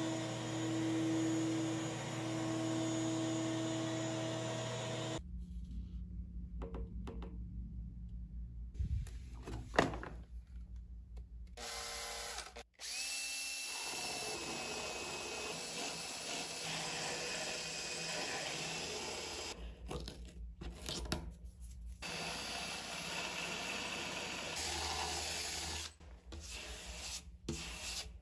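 A shop vacuum runs steadily for about five seconds. Then a power sander with a sanding disc grinds cured resin flush around a surfboard fin box, starting and stopping several times.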